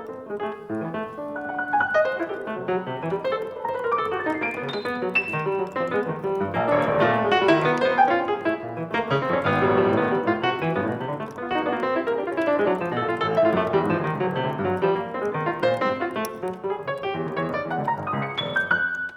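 Solo piano playing a dense, continuous flow of many overlapping notes across the keyboard, swelling in loudness midway.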